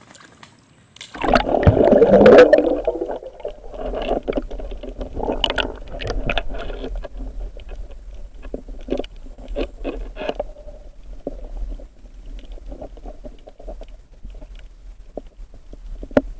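A loud splash and rush of bubbles about a second in as the spearfisher dives under, then the muffled sound of being underwater: bubbling with scattered clicks and crackles over a steady low rumble.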